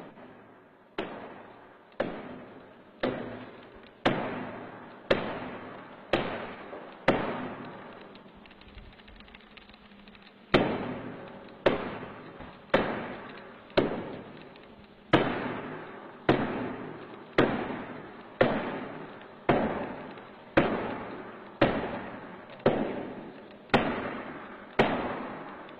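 Sledgehammer blows struck by hand against a grain silo's wall, about one strike a second, each ringing out briefly before the next. The strikes stop for about three seconds a third of the way in, then resume at the same pace.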